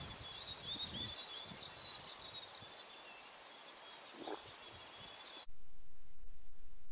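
Small songbirds singing high, rapid trilled phrases over a faint outdoor background. About five and a half seconds in, the sound cuts abruptly to a low, steady hum.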